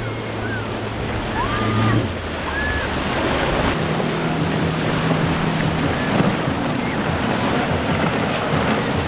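Boat engine hum over the wash of waves, with wind noise on the microphone. The low hum drops about two seconds in, and another steady engine tone comes in briefly around the middle.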